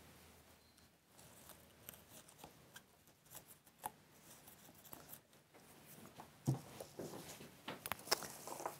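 Faint rustling and small clicks of evergreen foliage and berry stems being handled and pushed into an arrangement. Near the end come a few sharp snips from florist's secateurs cutting stems.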